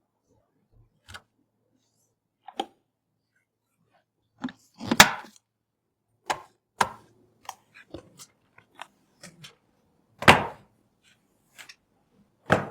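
Sharp clicks and knocks of computer parts being handled and fitted together during a PC build: about a dozen separate strokes with silence between them, the two heaviest knocks about five and ten seconds in.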